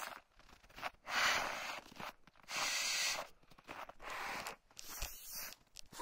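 Slow footsteps crunching and swishing through deep snow, four heavy steps about a second or more apart.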